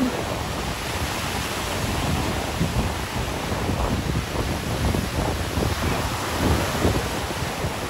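Ocean surf washing steadily, with wind buffeting the microphone in irregular low rumbles.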